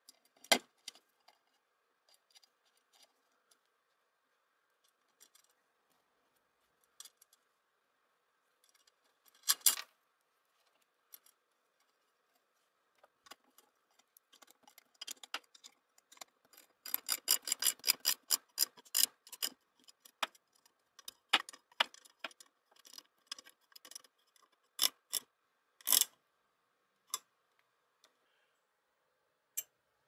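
Small metal clicks and taps of nuts and washers being fitted by hand onto the studs of a cast aluminium coffee-maker base, with a quick run of rapid clicking for a couple of seconds just past the middle.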